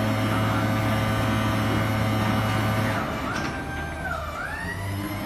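Hydraulic power unit of a wall panel installation machine running with a steady hum. About three seconds in the hum drops away, and a whining tone dips and then rises.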